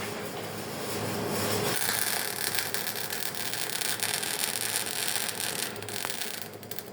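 MIG welding arc burning: a steady crackling hiss over a low hum, fading near the end as the arc stops.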